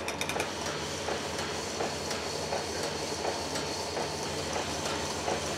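Cylinder honing machine running a rigid diamond hone head through a bore of a torque-plated big-block engine block, taking a couple thousandths out toward finish size: a steady machine hum with faint regular ticks.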